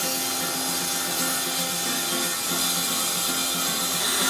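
Erbauer EXT cordless brushless circular saw ripping through a plywood panel, cutting steadily with an even whine from the blade and motor.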